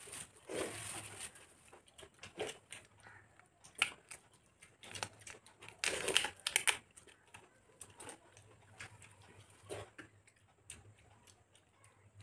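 Eating by hand: fingers working khichuri and fried sides on plates, with chewing and crisp bites heard as irregular clicks and short crackles. The loudest crackles come about half a second in and again about six seconds in.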